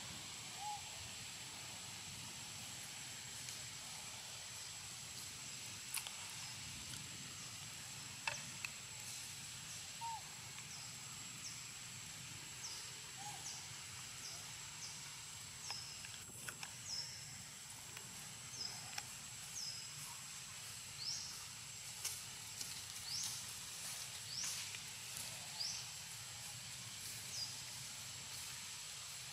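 Forest ambience: a steady thin high-pitched whine with short high chirps repeating, sparse at first and coming thicker in the second half, some sliding upward. A few faint lower chirps and soft clicks.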